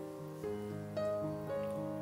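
Soft instrumental background music, held notes changing about every half second.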